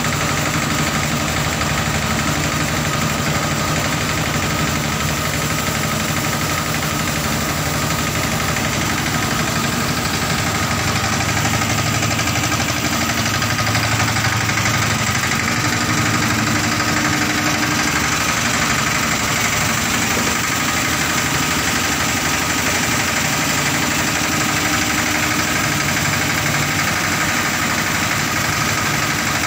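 Steeltrac 18 compact tractor's engine running steadily, hitched to a thresher.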